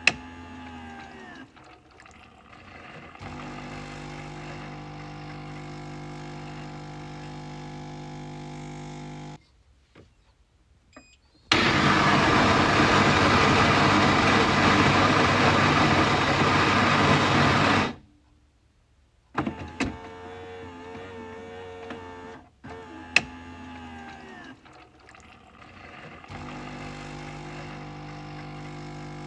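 Coffee machine running: a steady motor hum that glides in pitch as it winds up and down, stopping briefly and starting again. In the middle there is a loud, rough noisy stretch of about six seconds, and later a single sharp click.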